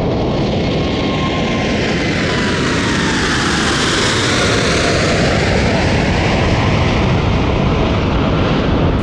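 Boeing 747-8F freighter's four GEnx-2B turbofans at takeoff power as it climbs out over the listener: a loud, steady jet roar. A fan whine in it falls in pitch as the aircraft passes overhead about four seconds in.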